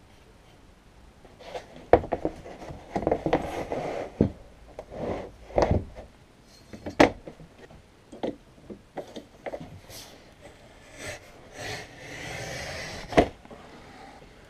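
Knocks and clatters of a board being handled and set against the rail of a sliding-head board cutter. Near the end comes about a second of scraping as the cutting head is drawn along the board, closed by a sharp knock.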